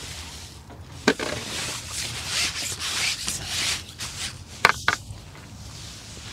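Rustling and rubbing, with a sharp click about a second in and two sharp knocks in quick succession near five seconds in.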